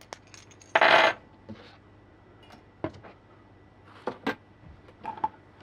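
Small metal battery-cable lug terminals clinking together in the hands and being picked up off a table, with one louder clatter about a second in and a few scattered clicks and knocks after it.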